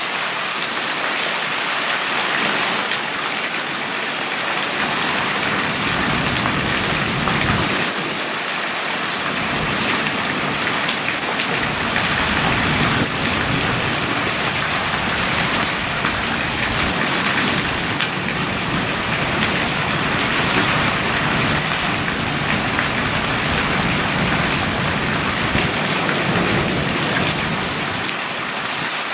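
Heavy rain falling steadily, a dense even hiss of drops on surfaces. A low rumble of distant thunder joins about eight seconds in and continues under the rain.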